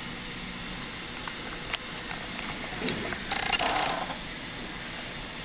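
Steady background hiss with no speech, broken by a couple of faint clicks and a brief rustle about three and a half seconds in.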